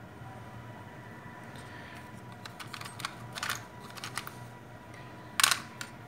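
Small plastic-bodied IC chips clicking and clattering as fingers rummage through them in a clear plastic storage tray. There are a few light clicks around the middle and one louder clatter near the end.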